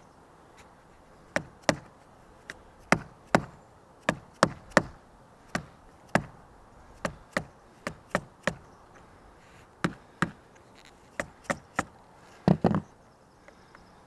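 Caulking gun being squeezed to push stiff, partly cured lap sealant out of its tube: about twenty sharp clicks of the trigger and plunger at uneven intervals, often in pairs, with a louder double clack near the end.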